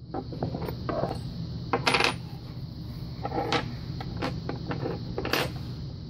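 Small metal padlock parts clinking and clicking as they are handled and set down on a wooden tray: a string of light metallic clicks, the loudest about two seconds in and again a little past five seconds.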